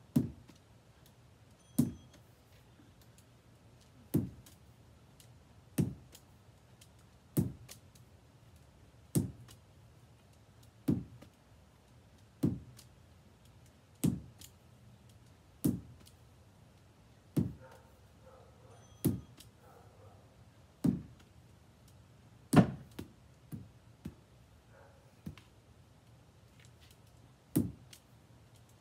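Lacrosse ball knocking sharply at a steady pace as it is thrown and caught with a lacrosse stick, about one knock every one and a half to two seconds. About two-thirds of the way through comes the loudest knock, followed by a few smaller ones and a short pause before the rhythm resumes.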